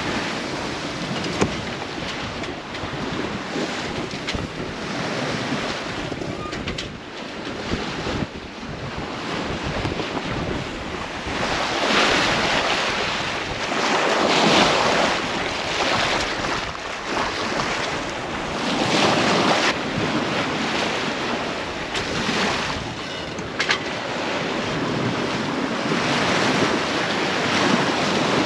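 Open-ocean waves and wind around a sailing yacht under way in rough seas, the rush of water swelling louder several times, with wind on the microphone and a few brief knocks.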